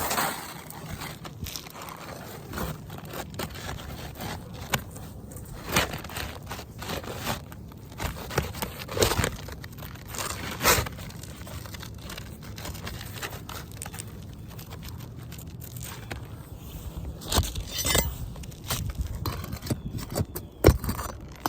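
Irregular scraping and crackling with scattered sharp knocks from brittle asphalt roof shingles being handled and worked loose during a repair.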